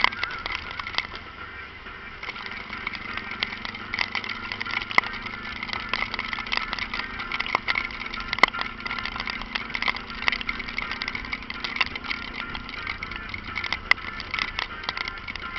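Honda Falcon 400 single-cylinder motorcycle engine running steadily, with many sharp crackles and ticks over it throughout.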